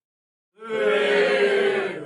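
A small crowd giving a drawn-out vocal reaction together, several voices holding one vowel at once. It starts about half a second in and is still going at the end.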